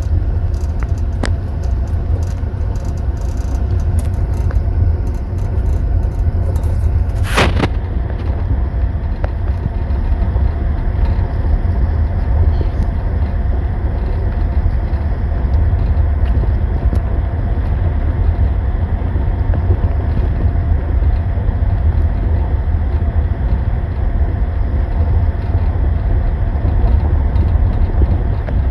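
Running noise of a passenger train heard inside a sleeper compartment: a steady, loud low rumble from the wheels and carriage on the track. A few light clicks in the first seconds and one sharp clink or knock about seven seconds in.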